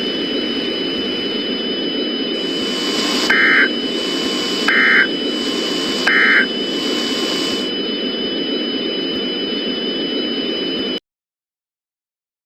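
Three short Emergency Alert System end-of-message data bursts (SAME digital tones), about a second and a half apart, over a steady hiss and hum with constant high whines. The sound cuts off to silence about 11 seconds in.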